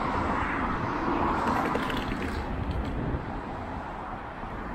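Rushing road noise of a city street, a broad hiss with a low rumble that is stronger for the first three seconds and then eases.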